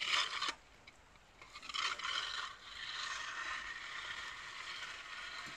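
Metal manure fork tines scraping and rattling on straw-covered yard ground: a short burst at the start, another about two seconds in, then a steadier scraping that fades near the end.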